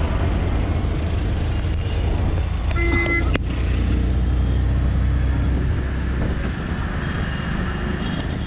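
Auto-rickshaw riding through city traffic, heard from inside its open cabin: a steady low engine drone with road and traffic noise. A short horn toot sounds once about three seconds in.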